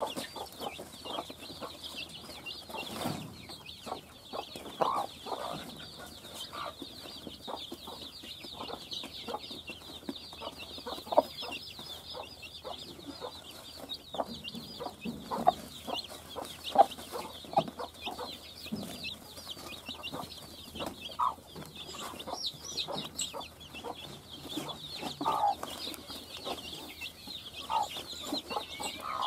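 Young chicks peeping constantly in rapid, high chirps while a mother hen gives low clucks every few seconds as she scratches and pecks at grain with them. Short scratching and pecking noises on the straw and sacking run through it.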